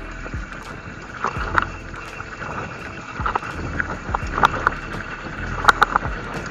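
Mountain bike rattling down a rough dirt trail: irregular sharp clicks and knocks from the bike jolting over bumps, over a steady rumble of wind on the microphone, with a quick cluster of knocks near the end.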